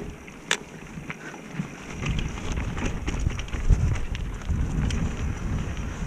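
Mountain bike descending a dirt trail: tyres rumbling over the ground and wind buffeting the microphone, with scattered sharp clicks and rattles from the bike. One sharp click comes about half a second in, and the rumble grows louder from about two seconds in.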